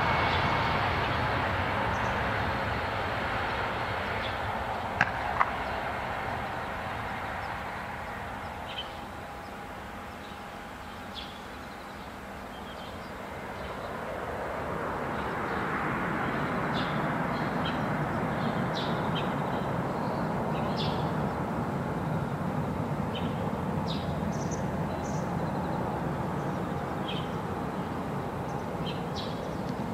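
Jet airliner engine noise that fades over the first ten seconds, then swells again and holds steady. Small birds chirp through the second half, and there are two sharp clicks about five seconds in.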